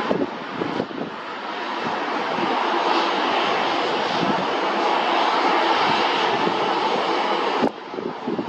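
Airliner jet engines running as the aircraft passes, a steady noise with a faint high whine that grows louder through the middle. It cuts off suddenly near the end.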